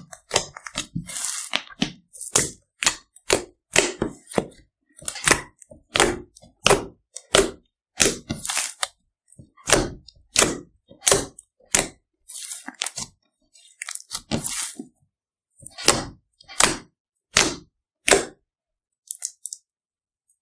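Fluffy slime mixed with kinetic sand being poked, squeezed and pressed with the fingers, giving a run of short, sharp crackling pops, about one or two a second, that stop shortly before the end.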